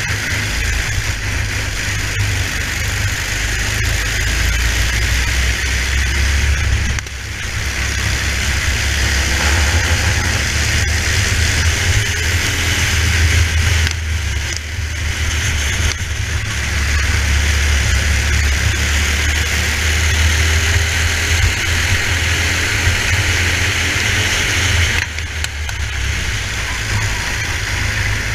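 Racing kart engine running hard, heard from on board the kart, a low drone with a steady rushing hiss over it. The sound dips briefly twice, about a quarter of the way in and near the end.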